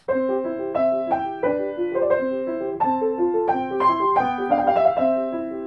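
Essex upright piano played with both hands in the classical style: a right-hand melody over an Alberti bass in the left, the broken chord repeating in even notes underneath.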